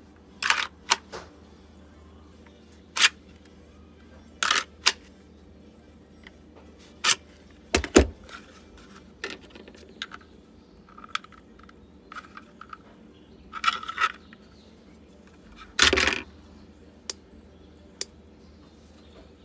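Irregular clicks, knocks and short rattles of hard plastic as an airsoft pistol, its magazine and Kydex holsters and mag carriers are handled and set down on a cutting mat. The loudest is a heavier knock about eight seconds in.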